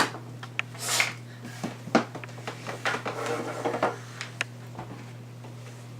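Light handling noises of objects being picked up and set down: scattered clicks and knocks with a short rustle about a second in, over a steady low hum.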